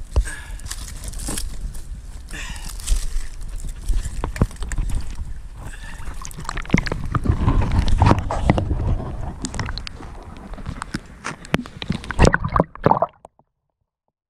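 Water sloshing and gurgling around a camera dipped into and held under canal water, with scattered knocks and clicks against the housing. The sound cuts off abruptly near the end.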